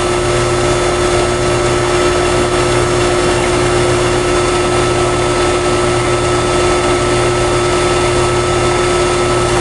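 2005 Goodman GSH13 2-ton heat pump outdoor unit running steadily in heating mode: a constant compressor hum with a steady tone over the even rush of the fan.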